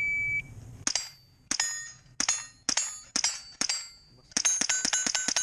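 A shot timer's start beep, then rifle shots on steel plates, each hit followed by the plate's metallic ring. Six shots come about half a second apart, then a rapid burst of about six more near the end.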